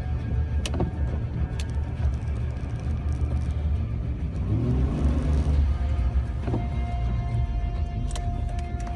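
Jeep Wrangler driving on a snow-covered road in four-wheel drive, heard from inside the cabin: a steady low engine and road rumble, with a few sharp clicks.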